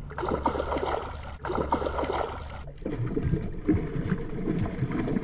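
A hooked tilapia thrashing and splashing at the surface of shallow water as it is reeled in. About three seconds in, the splashing turns muffled and dull, heard from a camera down at the waterline.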